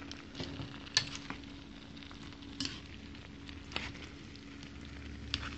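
Chow mein noodles sizzling in a pan over high heat as they are tossed and stirred. The utensil knocks and scrapes against the pan about six times.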